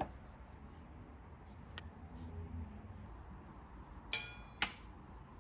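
Small metal pieces clinking: a faint click near the start and another a little later, then two louder clinks about half a second apart near the end, the first ringing briefly.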